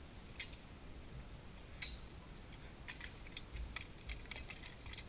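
Steel longswords and plate armour clanking as two armoured fighters strike and then grapple. There are a few separate sharp clanks, the loudest about two seconds in, then a quick run of clinks near the end.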